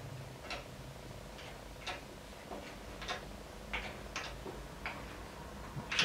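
Light, sharp metal clicks, irregularly spaced about one or two a second, from hand work on the outboard end of a Standard Modern 10-inch lathe's headstock spindle, over a low steady hum.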